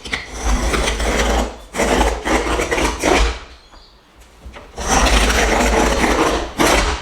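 Utility knife blade scoring a sheet of 1/4 inch Wonderboard Lite cement board: several long, loud, gritty scraping strokes along the cut line, with a pause of about a second and a half in the middle. The board's abrasive cement core is hard on the blade.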